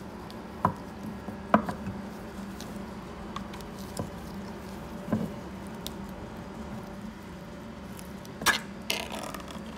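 Sharp metal clicks and taps of a ring-pull lid being pried up and peeled off a can of sweetened condensed milk, handled with rubber gloves. There are about six clicks, the loudest about a second and a half in and two close together near the end, over a steady low hum.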